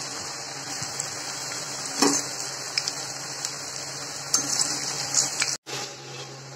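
Colocasia leaf pakoras deep-frying in hot mustard oil: a steady sizzle with sharp pops now and then. It cuts off abruptly about five and a half seconds in, leaving a low steady hum.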